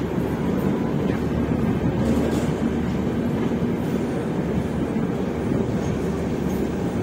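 Swarna Shatabdi Express passenger train running along the track: a steady low running noise of the wheels on the rails, with a few faint clicks.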